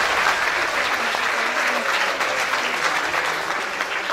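Audience applauding, a dense crowd of hand claps that starts to die away near the end.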